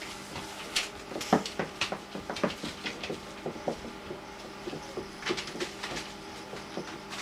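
Cocker spaniel puppies scuffling at play: irregular clicks, taps and small knocks of paws and bodies, over a steady low hum.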